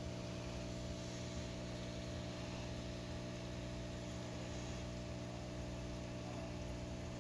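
Aquarium pump humming steadily, an even mains-type hum with a faint hiss over it.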